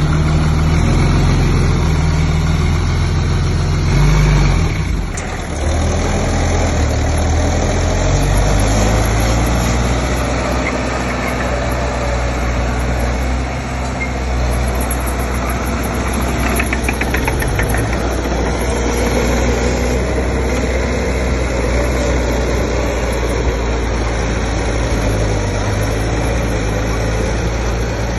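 Heavy earthmoving machine's diesel engine running under load, with a surge about four seconds in and a brief drop just after, then a steady run.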